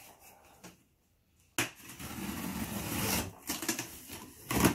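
Cardboard shipping box being opened by hand: packing tape pulled along the seam and the cardboard flaps rustled and worked loose, with scattered clicks and a sharp knock near the end. The sound drops out for about a second near the start before the handling starts again abruptly.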